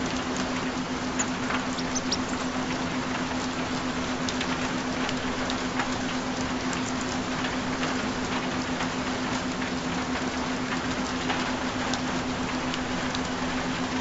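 Recorded steady rain, an even hiss with scattered individual drop ticks. Under it runs a continuous low steady tone, the track's added frequency tone.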